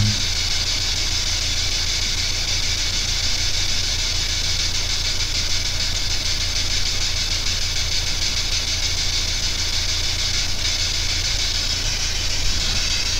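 Steady hiss of static with a low electrical hum underneath, unbroken throughout.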